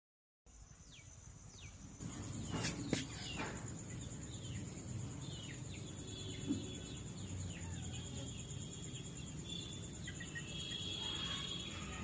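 Small birds chirping in short, falling calls over a steady high-pitched whine and low background noise, with two sharp clicks about two and a half to three seconds in.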